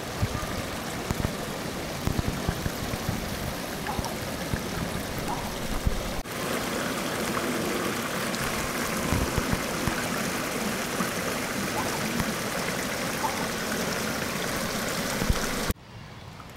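Steady rush of running water from a garden stream, briefly broken about six seconds in and dropping away sharply near the end.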